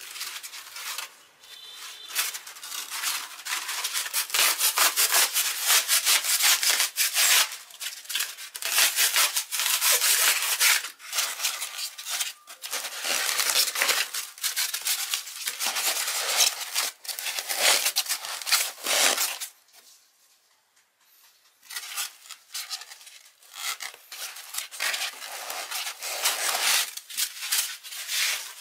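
Abrasive rubbing by hand: rapid, irregular rasping strokes of the kind made by sanding, filing or wire-brushing, with a pause of about two seconds about two-thirds of the way through.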